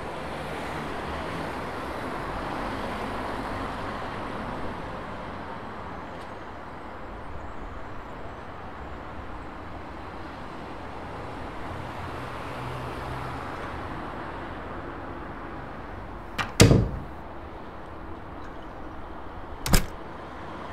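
City street background with traffic, swelling twice as vehicles pass, then two sharp thumps about three seconds apart near the end; the first is heavier, with a low tail.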